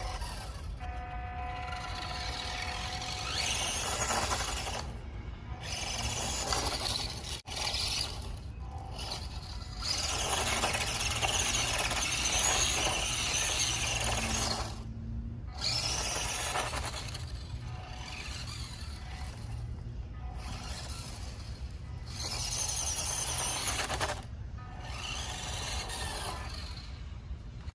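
WPL D12 1/10 RC mini truck driven in bursts: its small electric motor and gears whine, stopping and starting again every few seconds.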